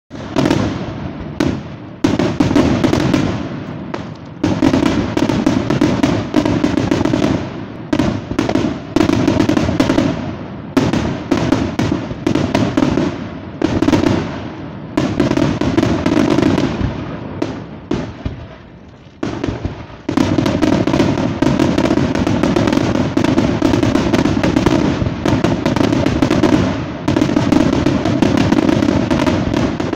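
Dense barrage of aerial firework shells bursting in rapid succession, a near-continuous run of booms and crackles. It thins out briefly about eighteen seconds in, then resumes at full density.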